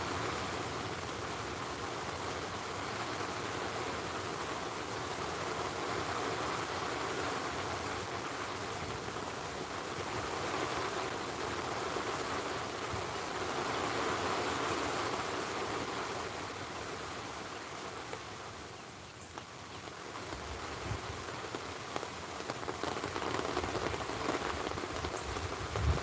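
Steady rain falling, swelling and easing in waves, with a brief lull about nineteen seconds in.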